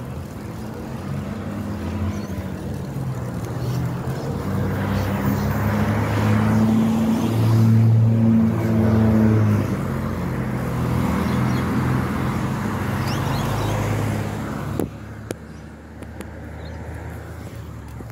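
A motor vehicle's engine on the road alongside, a low steady hum that grows louder to a peak about eight seconds in and holds. Near the end it drops away suddenly after a sharp click.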